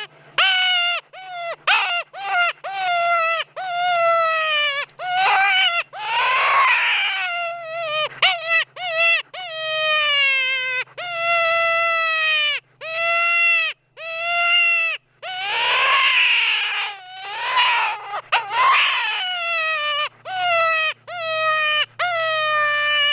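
Predator call playing a prey-in-distress sound: a long series of wailing cries, most falling in pitch, repeated over and over with short breaks between them.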